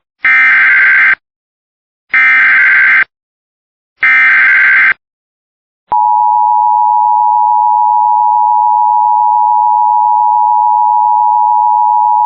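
Emergency Alert System tones for a flash flood warning: three bursts of SAME digital header data, each about a second long and about a second apart, then, about six seconds in, the steady two-tone EAS attention signal starts and holds.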